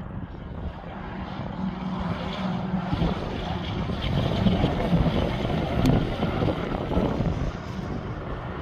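Semi-trailer fuel tanker truck passing on the highway below, its diesel engine droning with tyre noise. The sound grows louder toward the middle as the truck comes nearest, then eases off.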